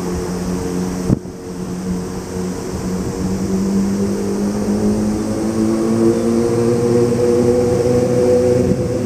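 A distant vehicle's motor drone, a steady hum of several tones that grows louder and slowly rises in pitch, with one sharp click about a second in.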